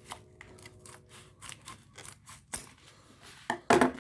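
A package being opened by hand: a string of small clicks, snips and scrapes on the packaging, then a louder rustle near the end.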